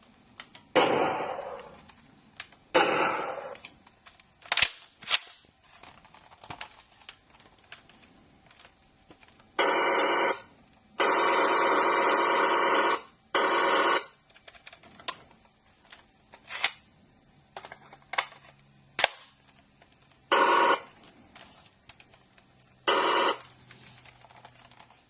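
Sound-effects module of an M41A pulse rifle replica playing bursts of the film's rapid electronic pulse-rifle fire chatter, the longest lasting about two seconds near the middle, with some earlier bursts fading out. Sharp clicks of the replica being handled and switched fall between the bursts.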